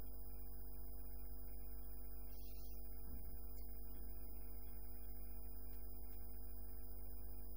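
Steady electrical hum made of several constant tones over a low drone, unchanging throughout, with two faint clicks about six seconds in.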